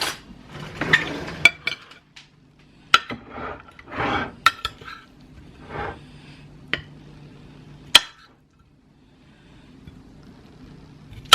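Dishes and cutlery clinking and knocking as food is served: a few seconds of handling, then single sharp clinks spread apart, the loudest about eight seconds in. A faint steady hum runs underneath.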